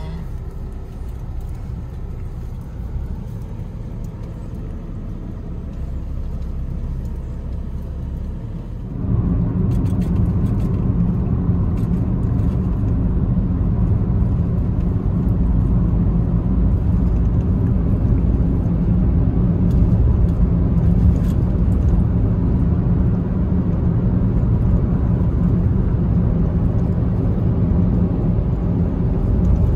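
Steady low rumble of a car's engine and tyres heard from inside the cabin while driving; about nine seconds in it jumps louder, the road noise of the car travelling at speed.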